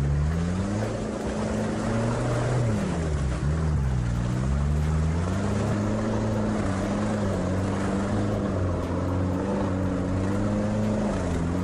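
All-terrain vehicle engine running, its pitch dipping and climbing again several times as the throttle is eased and opened.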